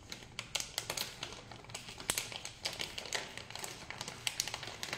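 Plastic instant mashed-potato packet crinkling and crackling in quick, irregular clicks as fingers pick and tear at its top edge.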